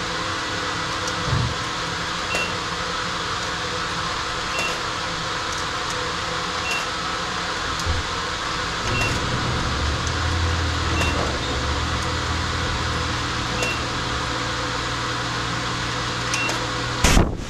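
Self-serve car wash machinery humming steadily, with a short electronic beep about every two seconds; a deeper rumble joins about halfway through, and a loud rush of spray noise starts just before the end.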